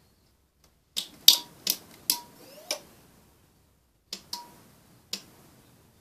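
A switch on the home fire alarm system being flicked to reset the silence function: about eight sharp clicks in an irregular run, three of them followed by a short steady tone, with a quiet pause about three seconds in.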